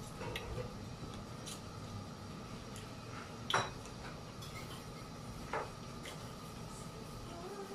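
Crisp butter-toasted French bread crunching as it is bitten and chewed: a few sharp crunches, the loudest about three and a half seconds in and another about two seconds later, over a low steady background hum.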